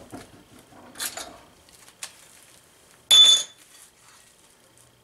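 Pieces of aluminum sheet clinking and rattling as they are handled, with a few light clicks, then a loud metallic clank with a brief high ringing about three seconds in.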